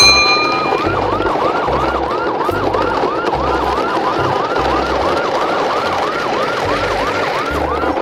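A toy fire engine's electronic siren: a short rising tone, then a fast wail that sweeps up and down about three times a second without a break.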